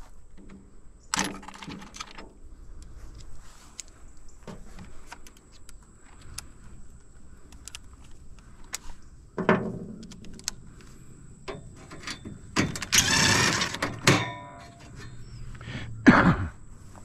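Scattered metal knocks and clanks from an air-conditioning unit being dismantled by hand, with a longer scrape of metal about three-quarters of the way in.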